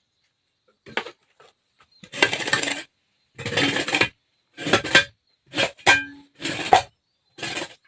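Broom sweeping a floor in repeated scratchy strokes, about one a second, with a few short clicks between them.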